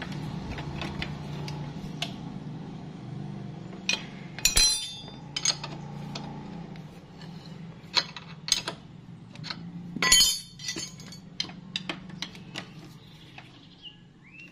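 Steel socket spanner and bolts clinking and tapping against a motorcycle's camshaft sprocket as the sprocket bolts are fitted and tightened. Scattered clicks run over a low steady hum, with louder ringing metal clinks about four and a half and ten seconds in.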